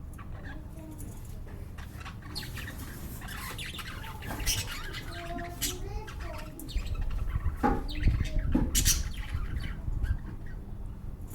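Pet lovebirds giving short, sharp squawks and chirps, a handful spread over the stretch, with a low rumble underneath in the second half.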